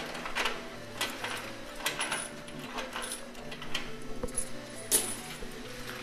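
Coins clinking and clattering in a coin pusher machine: scattered sharp metallic clicks as coins drop and knock together on the pusher shelf, the loudest about five seconds in, over a steady low hum.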